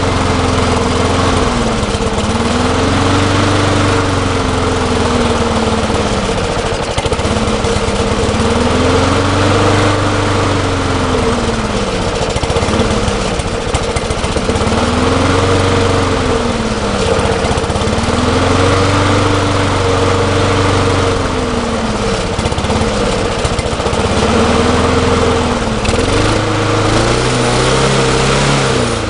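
Walk-behind lawn mower's small single-cylinder engine running and surging: its speed rises and falls over and over, every few seconds, instead of holding steady. The owner blames a bent governor spring and a faulty diaphragm carburetor.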